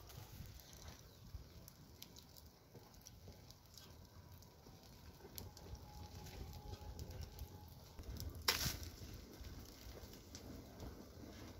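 Wood fire crackling faintly under a fish grill: scattered small snaps, with one sharp pop about eight and a half seconds in, over a low rumble.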